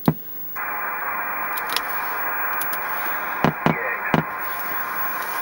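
Receiver static from a President Madison CB base station's speaker: a click, then a steady hiss starting about half a second in. A few sharp clicks between three and a half and four seconds in come as the channel selector is turned from channel 12 to channel 10.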